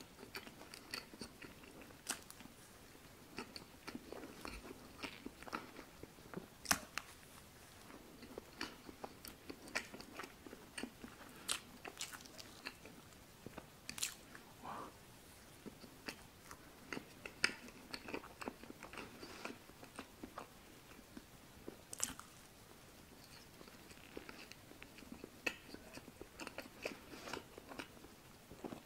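Chewing of soft chocolate sponge cake with cream filling, with many short wet mouth clicks and smacks.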